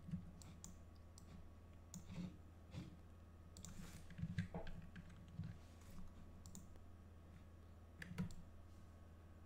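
Faint, irregular clicks of a computer mouse and keyboard, a dozen or so spread unevenly, over a low steady hum.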